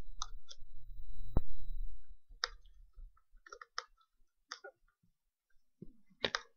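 Screwdriver turning the clamping screws of a sensor bracket on a steel tank: a low handling rumble for about two seconds, then scattered small clicks.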